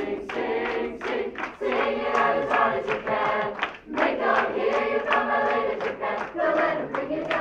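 Youth choir of mixed children's voices singing an upbeat a cappella pop number, with sharp rhythmic claps punctuating the singing.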